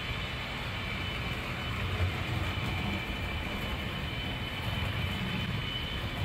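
Model train running around a tabletop layout: a steady rolling hum with thin, constant high tones above it.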